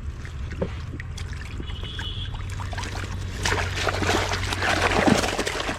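Water splashing and trickling, busiest and loudest from about three and a half seconds in, over a steady low rumble.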